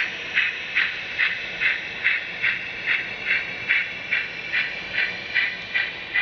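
ESU digital sound decoder in a TRIX model steam locomotive playing steam exhaust chuffs through its small speaker, at a steady pace of about two and a half chuffs a second.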